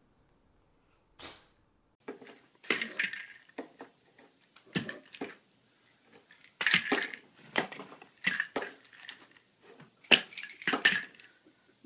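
Plastic pill bottles clattering and rattling on a wooden dresser top as a cat paws at them. There are irregular short knocks and rattles, starting about two seconds in.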